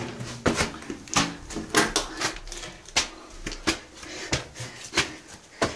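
Footsteps scuffing on the stone floor of a cramped passage, a steady pace of about three steps every two seconds.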